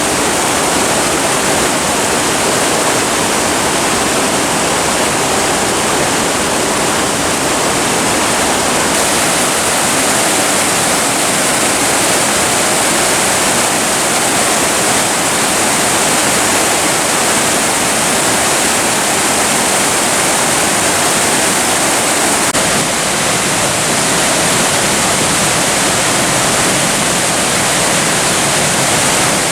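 Rushing water of a mountain gorge stream and waterfall: a steady, loud, even hiss of falling and flowing water.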